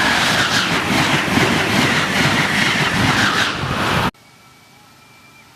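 Amtrak Acela Express trainset passing close by at speed: a loud rush of wheels and air with a rapid clatter over the rails. It cuts off suddenly about four seconds in, leaving a faint steady background.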